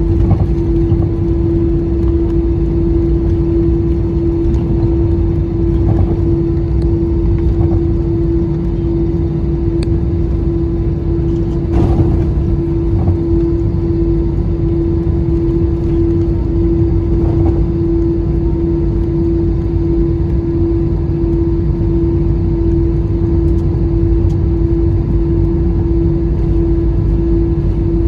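Cabin noise of an easyJet Airbus jet taxiing on idling engines: a steady low rumble with a constant hum, and a light knock about twelve seconds in.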